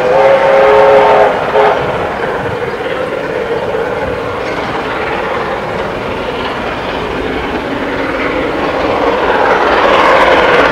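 Steam locomotive whistle sounding for about a second and a half as several notes at once, then the approaching locomotive working hard, its exhaust and running noise growing louder toward the end.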